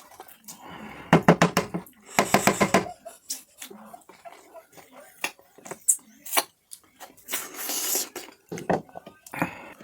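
Close-miked eating: wet chewing and lip smacking while eating mutton curry with puri, with two louder bursts of rapid wet smacking about a second and two seconds in.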